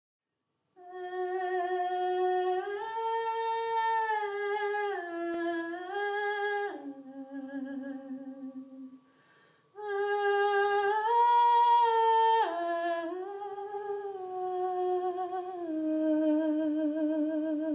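A single voice humming a slow wordless melody in two phrases, each held note stepping up or down to the next, with a short pause between the phrases. The last long note wavers with vibrato.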